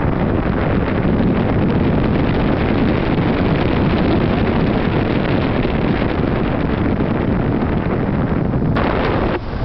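Steady rushing of wind on the microphone, mixed with the road noise of a moving vehicle, with a brief dip near the end.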